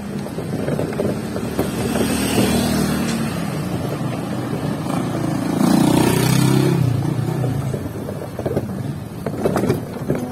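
Vehicle engine and road noise while riding along a concrete road, with wind on the microphone. The sound swells louder for a couple of seconds past the middle, and there are a few sharp knocks near the end.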